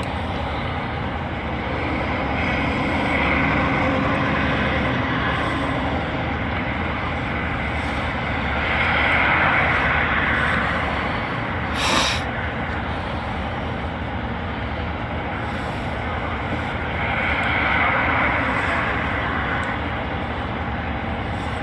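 Steady running noise of a parked car, heard from inside the cab, swelling louder three times, with one sharp click about twelve seconds in.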